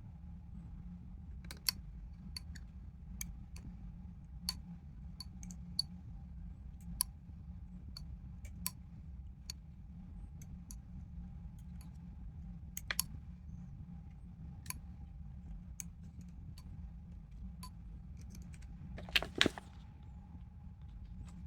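Scattered sharp clicks and light taps of small hard parts or tools being handled, with a louder jangling clatter about nineteen seconds in, over a steady low hum.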